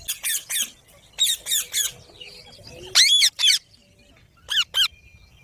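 A parrot giving shrill squawking calls in four short bursts of two to four notes each, the third burst the loudest.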